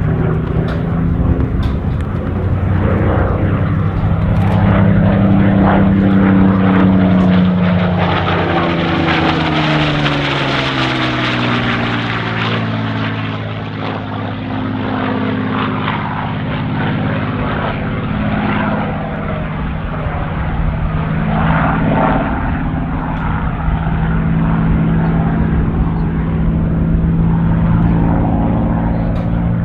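Supermarine Spitfire's Rolls-Royce Merlin V12 engine and propeller in flight during aerobatics. The engine note slides down in pitch over a few seconds about halfway through, then climbs back up and holds steady.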